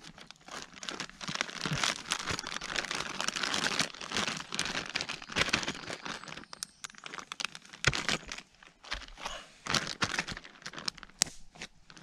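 Plastic zip-top bag crinkling and rustling irregularly in the hands, with sharper crackles here and there, as seasoned perch fillets are worked around inside it to coat them.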